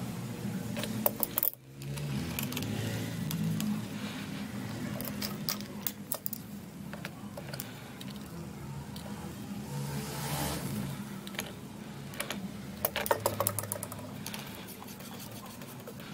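Clicks and clinks of slip-joint pliers gripping and turning a plastic union nut on a brass ball valve, in short clusters, over a steady low hum.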